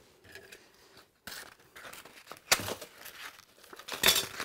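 120-grit sandpaper being folded and cut along the fold with a putty knife: a few short, sharp rasps of tearing paper, the loudest about two and a half and four seconds in.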